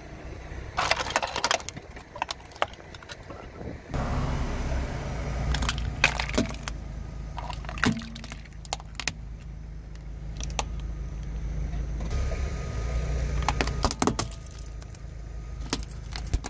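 A car tyre rolling over plastic toys and crushing them: repeated sharp cracks and crunches of snapping plastic. A steady low car rumble runs under them from about four seconds in.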